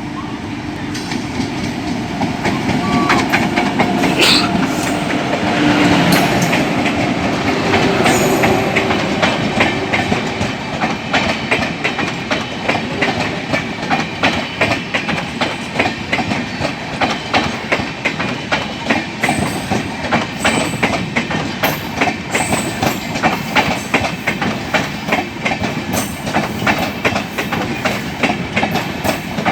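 Passenger coaches of an express train rolling past, the wheels clattering over the rail joints in a fast, regular clickety-clack. The run is loudest for the first several seconds, then settles into a steady pulsing clatter.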